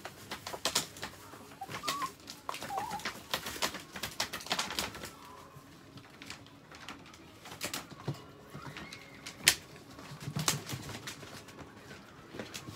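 Small dogs moving in wire pens: irregular clicks and rattles of paws and claws against the wire and the floor, with a few short, high whines.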